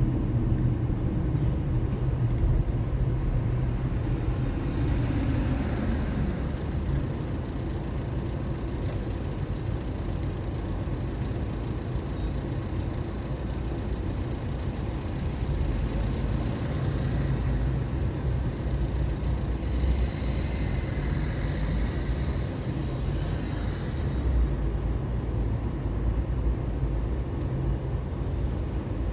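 A car driving through city traffic, with a steady low rumble of engine and tyres. Other vehicles swell up and pass, once about halfway through and again a little later.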